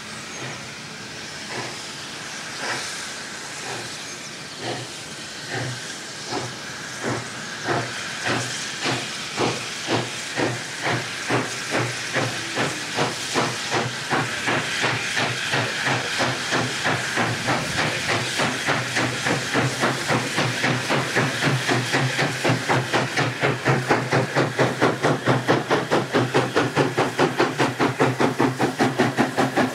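The 'Coal Tank' 0-6-2T steam locomotive 58926 working a freight train under steam over a steady hiss. Its exhaust beats start at about one a second, then quicken to about three a second and grow much louder as it approaches.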